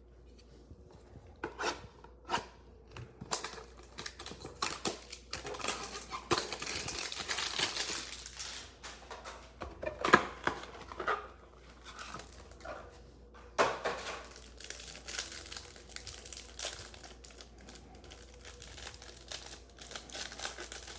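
Trading-card hanger box being opened by hand: cardboard tearing and a plastic wrapper crinkling, with a few clicks at first and a sharp snap about ten seconds in.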